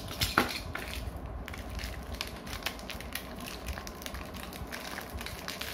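Thin plastic wrapping crinkling and crackling with many small clicks as it is handled and opened, with one sharper click about half a second in.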